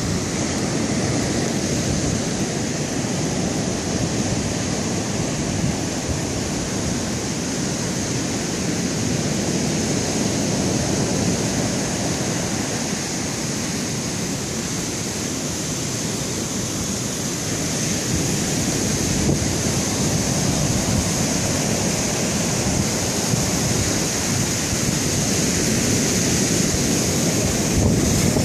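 Steady rushing water from a waterfall and ocean surf, with wind on the microphone; it grows a little louder in the second half.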